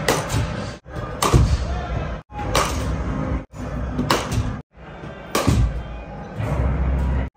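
Cricket bat striking balls from a bowling machine in an indoor net: a sharp crack about every second and a half, six in all, across a run of short cut-together clips.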